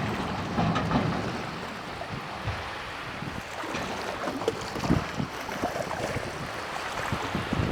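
KAMAZ truck diesel engines running as a low rumble, with wind buffeting the microphone in irregular low thumps.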